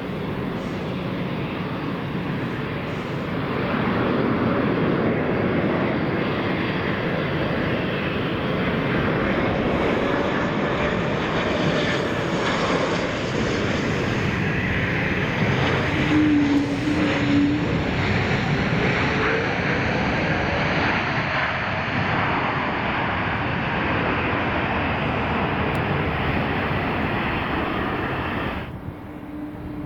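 Airliner engines at close range: a loud rushing noise with whining tones that slide up and down, swelling about four seconds in. The sound changes abruptly near the end.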